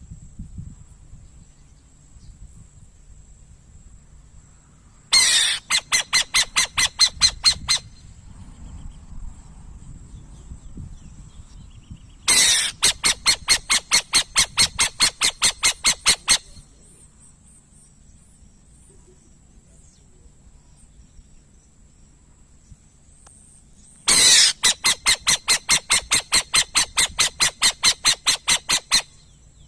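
Burrowing owl giving rapid chattering calls in three bouts of quick, evenly repeated notes, about six a second, each bout lasting a few seconds, the first about five seconds in, the next near twelve seconds and the last near the end. A faint steady high-pitched tone runs underneath.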